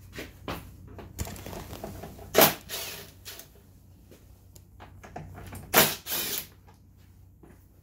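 Clicks and knocks of tools and plastic parts being handled at a scooter's plastic handlebar cover, with two loud sharp clacks, one about two and a half seconds in and a longer one about six seconds in.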